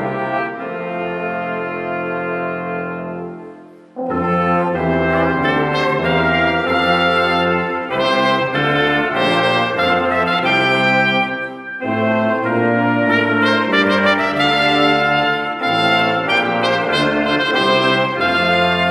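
Small brass ensemble of two trumpets, French horn, trombone and tuba with clarinet, playing in harmony. A long held chord fades away over the first few seconds, then the whole group comes back in about four seconds in and plays on, with a short break between phrases midway.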